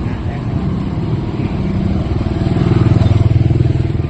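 Motorcycle engine running close by. It grows louder about two and a half seconds in, then eases off near the end.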